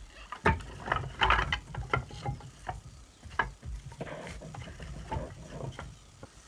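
Irregular knocks, clicks and rustling, denser about a second in and again after about four seconds.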